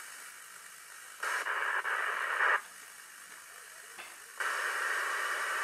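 Hiss from a software-defined radio receiver tuned to the 2-metre amateur band: a faint steady hiss, broken twice by louder stretches of hiss, each about a second and a half long and limited to the narrow voice band.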